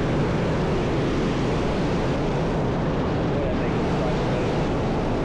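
Steady rushing of a trout stream's flowing water.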